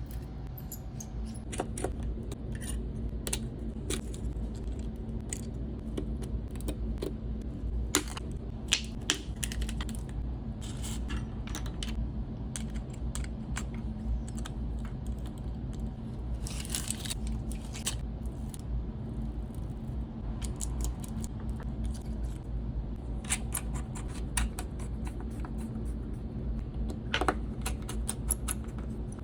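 Small tools and phone parts clicking and tapping on a workbench during a Samsung phone display replacement, in scattered irregular ticks, with one brief scratchy rasp about halfway through, over a steady low hum.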